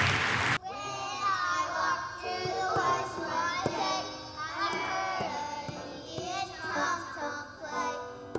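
Applause, cut off abruptly about half a second in, then a group of young children singing together.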